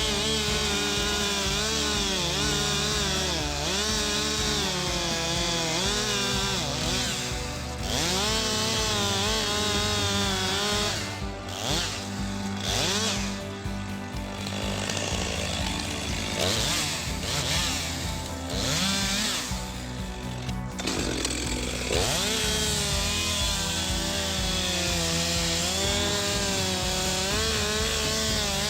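Stihl MS 462 two-stroke chainsaw running hard in a cut, its engine pitch repeatedly rising and falling as it loads in the wood and revs free. It is rougher and uneven for several seconds in the middle, then settles back to a steady cut.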